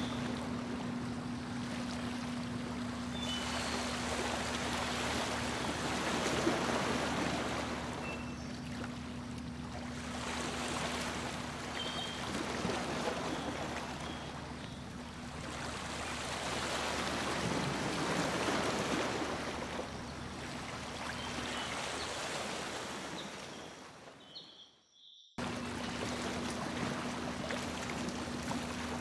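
Boat under way on a lake: water rushing and splashing along the hull over a steady low engine hum. The sound fades and drops out for about a second near the end, then returns.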